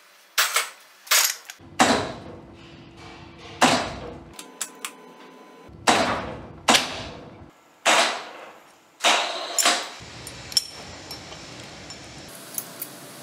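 Hammer blows on the steel shaft and gear assembly of a ZF 16S truck gearbox as it is seated in the casing, about ten sharp metallic strikes at irregular intervals, each ringing out. Lighter clinks of metal follow near the end.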